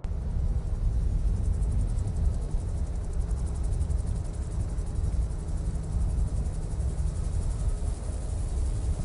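Mercedes-Benz SL roadster driving: a steady low rumble of engine and road noise that starts abruptly.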